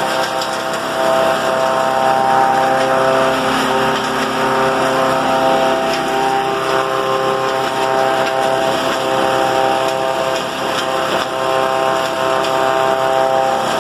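Nogueira DPM 2 hammer mill, driven by an electric motor, running steadily while grinding dried cassava peel into meal. It makes several steady tones over a rushing noise as the peel is fed in by hand.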